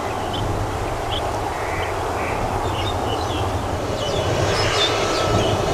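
Steady low rumble of urban background noise with a few faint chirps. About four seconds in, the high whine and rush of an approaching Bombardier Global 7500 business jet's turbofans begins to build and grow louder.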